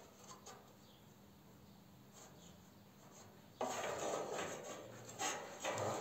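Near silence, then about three and a half seconds in, a sudden start of rubbing and scraping as parts are handled in the case frame, with a couple of light knocks near the end.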